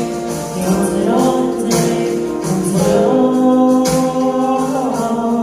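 Worship song: voices singing long held notes together, choir-like, with musical accompaniment.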